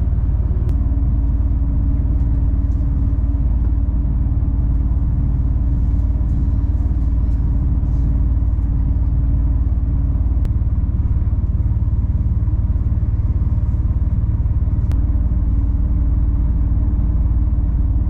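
A 26-tonne three-axle rigid lorry driving, its engine and road noise heard from inside the cab as a steady low drone with a humming tone that fades out briefly in the middle. Three single sharp clicks stand out.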